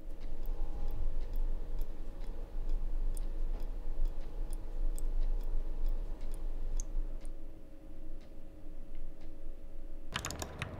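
Steady low hum of a quiet room, with faint irregular clicks and ticks scattered through it. Near the end a brief louder burst of noise cuts in.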